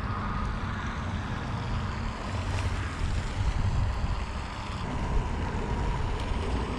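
Wind buffeting the camera microphone: a steady, low rumbling noise.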